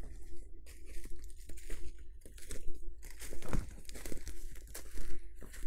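Irregular rustling and crunching of footsteps through woodland undergrowth and leaf litter, with padded jacket fabric brushing close to the microphone.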